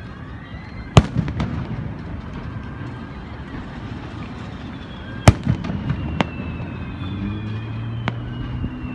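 Aerial firework shells bursting: two loud booms about four seconds apart, each followed by a scatter of smaller pops, then a couple of lighter bangs.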